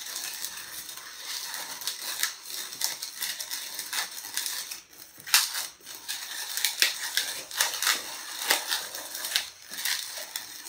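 Latex modelling balloons rubbing and squeaking against each other as a long yellow balloon is twisted and locked onto a blue balloon, giving an irregular run of sharp squeaks and crackles.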